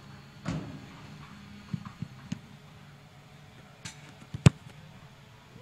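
A football kicked off a holder on turf: one sharp thud of the boot striking the ball about four and a half seconds in, just after a lighter tap. A few fainter knocks and a softer thump come earlier.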